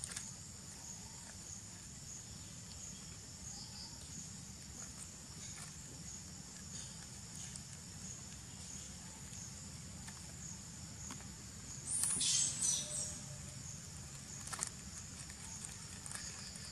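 Insects buzzing steadily in a high, thin tone. About twelve seconds in comes a brief burst of crinkling from a plastic snack wrapper a young long-tailed macaque is handling, followed by one sharper crackle a couple of seconds later.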